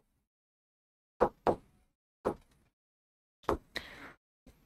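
A stylus pen knocking against the glass face of an interactive display board as a word is written on it in handwriting: about six sharp taps at uneven intervals, with a short scratchy stroke near the end.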